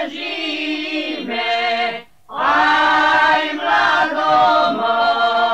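A choir singing a traditional Slavonian folk song unaccompanied, in held notes with voices in harmony, with a short breath break about two seconds in.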